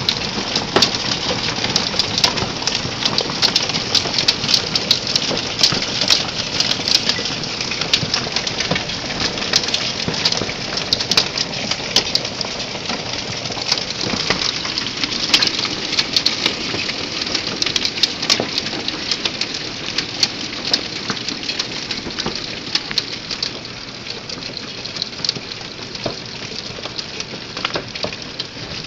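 Hailstorm: a dense, steady clatter of hailstones pelting down with rain, full of sharp individual cracks and ticks from stones striking. It eases slightly near the end.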